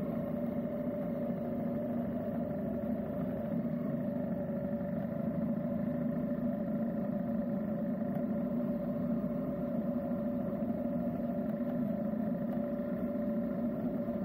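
Motorcycle engine running steadily while being ridden, its note holding an even pitch.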